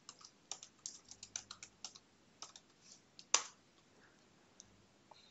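Typing on a computer keyboard: a quick run of light key clicks, then one louder click a little over three seconds in, followed by a couple of faint clicks.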